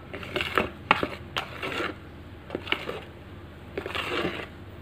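Spatula folding flour into whipped egg whites in a mixing bowl: irregular soft scraping strokes through the thick batter, with a couple of sharp clicks of the spatula against the bowl about a second in.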